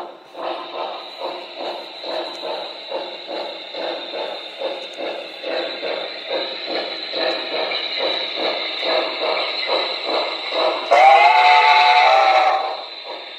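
Sound-equipped model locomotive running, its onboard speaker playing a rhythmic chugging of about three beats a second over a thin steady high tone. Near the end it sounds one long blast of several tones, rising at the start, for about a second and a half.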